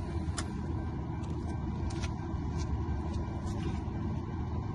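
Steady low rumble with a few short, light clicks.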